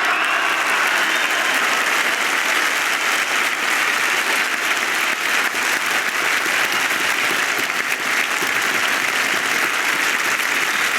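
Dense, steady applause from a large crowd.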